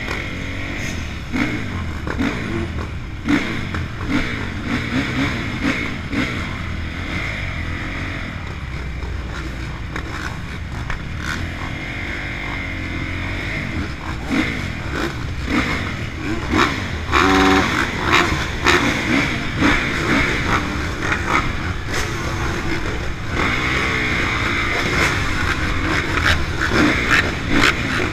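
Honda CRF450 single-cylinder four-stroke motocross engine running at idle and blipped up and down, with several other motocross bikes idling and revving around it.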